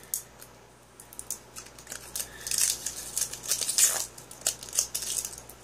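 A lipstick being opened by hand: a series of small plastic clicks and short scraping, rustling noises, densest around the middle.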